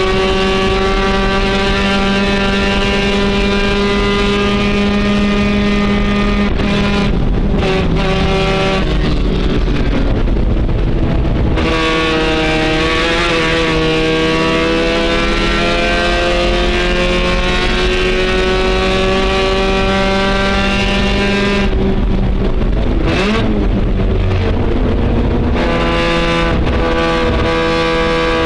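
Race car engine heard from inside the cockpit, running hard on track. Its pitch climbs steadily for several seconds in the middle as the car accelerates. Around 7–11 s and 23–25 s the note drops and changes as the car slows for corners.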